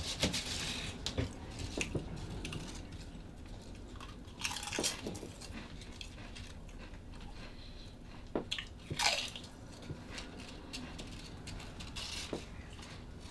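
Potato chips being bitten and chewed: scattered crunches and crackles, with a few louder crunches standing out among quieter chewing.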